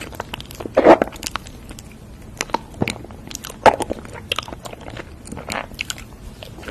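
Close-miked eating of ice cream mochi: soft bites into the chewy rice-dough shell and ice cream filling, with wet chewing and mouth clicks. The loudest bites come about a second in and again near four seconds.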